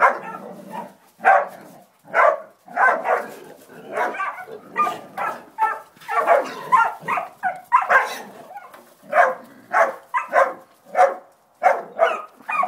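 Hog dog pups barking over and over in short, loud barks, about one to two a second, as they bay a hog.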